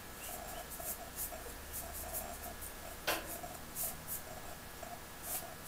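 Oil-painting brush scratching and scrubbing thinned paint onto a painting panel in quick, irregular short strokes, like the little downstrokes used to suggest water. A single sharp tap about three seconds in.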